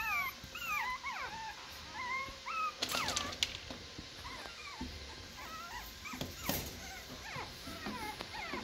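Chihuahua puppies whining and yipping: many short, high whimpers that rise and fall one after another, with a few sharp knocks near the middle.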